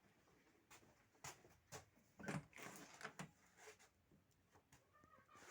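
Faint scattered knocks, clicks and rustles, a short cluster of them slightly louder a little past the middle.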